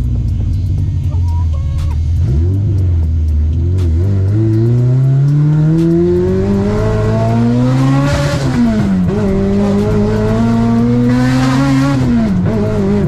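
Toyota Corolla's 2ZZ-GE four-cylinder engine pulling hard through the gears. After a brief steady note at the start, the engine pitch climbs steadily, falls sharply at an upshift about eight seconds in, then climbs again and falls at a second upshift near the end.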